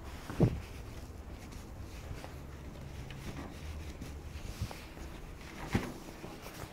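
Handling noise from a handheld camera: two dull thumps, the louder about half a second in and another near the end, with a faint low rumble between them.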